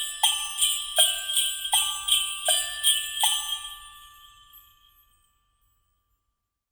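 Christmas jingle of bell strikes in a steady rhythm, about three a second, with glockenspiel-like notes ringing on between them. The strikes stop about three and a half seconds in and the ringing fades out over the next second or so.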